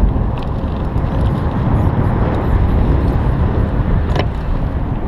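Wind rushing over a bicycle-mounted GoPro's microphone while riding, a steady low rumble with the tyres rolling on pavement underneath, and a brief click about four seconds in.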